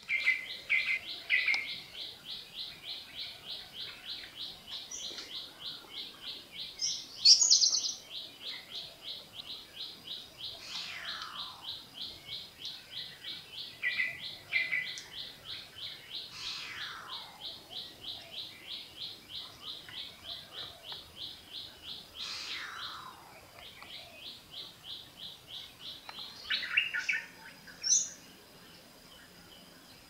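A mix of forest birds calling. A long, fast, even run of high repeated notes carries on until near the end. Over it come several descending whistled calls and short chirps, the loudest a sharp call about seven seconds in. A thin, steady high tone is left at the very end.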